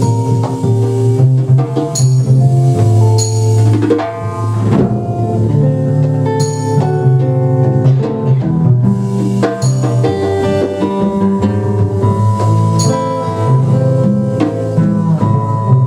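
Live jazz trio playing: acoustic guitar notes over a double bass line, with a drum kit keeping time and a few cymbal strokes.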